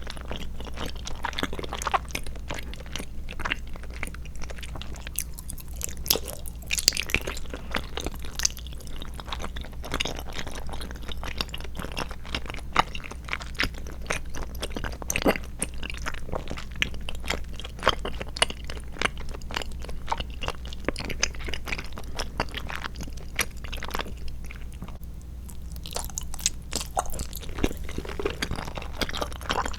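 Close-miked chewing of soft, chewy tapioca pearls and jelly: wet, sticky mouth clicks coming thick and irregular throughout, over a faint steady low hum.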